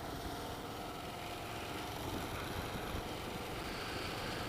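2009 Kawasaki KLR650's single-cylinder four-stroke engine idling steadily.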